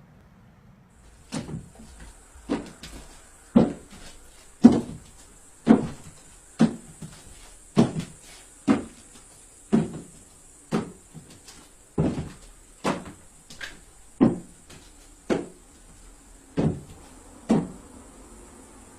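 A steady run of sharp knocks or bangs, about one a second, some of them doubled, around sixteen in all.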